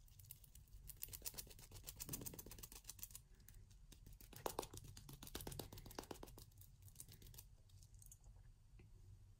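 Sponge dabbing wet decoupage glue (Mod Podge) onto a small glass jar: a faint, rapid run of fine clicks, thinning out near the end.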